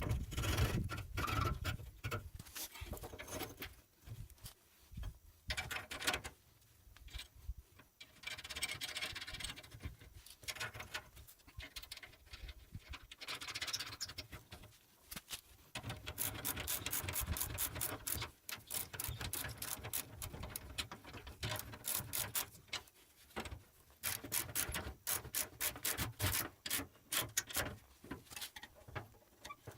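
Hand tools working on a wheelbarrow's wheel axle nuts and retainers. A ratchet spanner clicks in quick, evenly spaced runs, mostly in the second half, with rubbing and scraping of metal parts in between.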